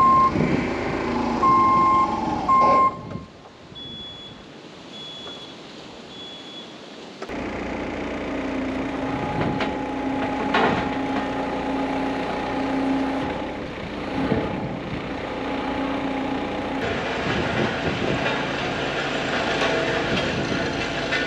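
Three loud short electronic beeps. Then, from about seven seconds in, a heavy diesel engine running steadily.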